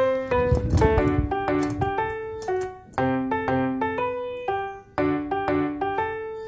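Background piano music, a melody of single notes struck at an even pace. About a second in, a brief low rumbling noise sounds under the music.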